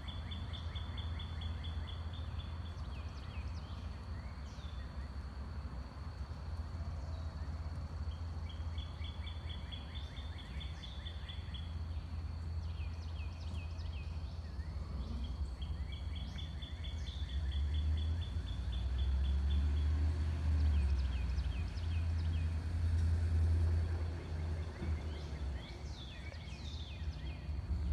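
Outdoor ambience: songbirds singing rapid high trills about three times, with scattered short chirps, over a steady low rumble that grows louder about two-thirds of the way through. A faint steady high tone runs underneath.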